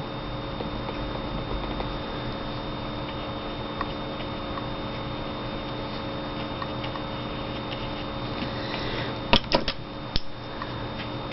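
Steady background hum of a small room, carrying a few faint steady tones like a fan or appliance. A few quick taps come close together about nine seconds in, and one more follows a moment later.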